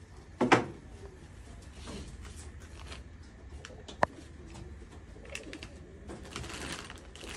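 Pigeons cooing in the background while camera gear is handled, with a loud thud about half a second in and a sharp click about four seconds in.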